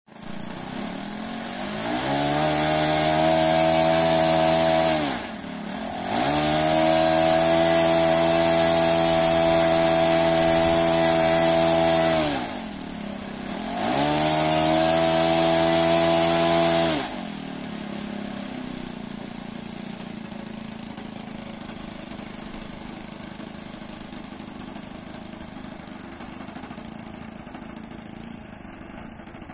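OS Alpha 81 glow engine in a Hangar 9 Showtime 50 model plane, run up on the ground: revved to high throttle three times, pitch sliding back down between runs, then dropping to a quiet idle for the second half. A test run of the freshly overhauled engine.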